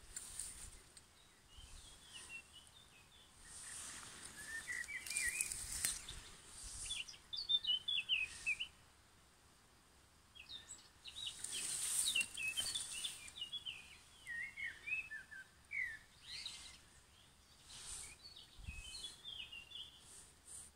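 Songbirds singing in quick, broken phrases of high chirps, in two long spells with a short gap in the middle. Short bursts of hiss come and go between them.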